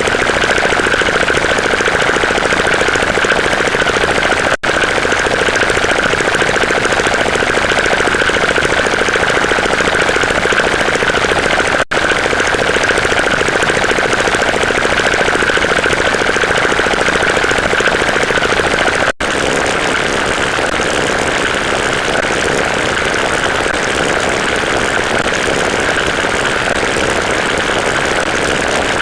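A loud, steady, machine-like rumbling noise with a constant whine in it, cutting out for an instant three times, about seven seconds apart.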